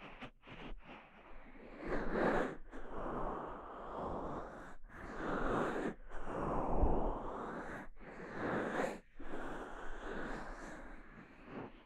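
Fingers massaging the silicone ear of a KU100 binaural dummy-head microphone, heard right at the ear: a few light taps, then long swells of soft rubbing noise broken by brief pauses.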